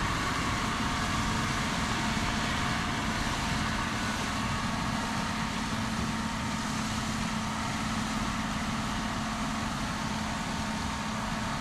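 A machine engine running steadily at an even pitch under a steady wash of outdoor noise, with no change in speed.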